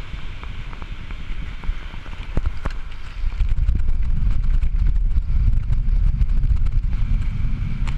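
Wind buffeting a handheld GoPro's microphone on a fast bicycle descent: a low rush of air that grows much louder about three seconds in, with scattered light clicks.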